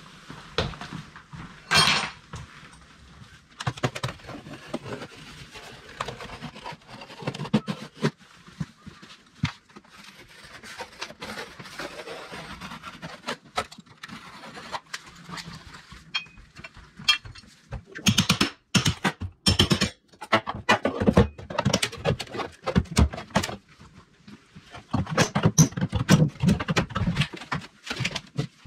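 Old wooden door casing being pried and pulled off the wall around a doorway: irregular knocks, taps and cracks of wood, busiest in two spells in the second half.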